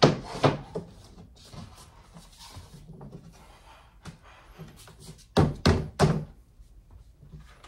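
Particleboard cabinet panels knocking as they are handled and fitted together: a sharp knock at the start and another half a second later, light taps and rubbing, then three quick knocks about five and a half seconds in.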